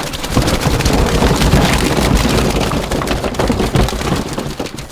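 Live Florida spiny lobsters being shaken out of a wet mesh bag into a boat's fish box: a dense crackling patter of dripping water and shells and legs rattling against the plastic, over wind rumbling on the microphone.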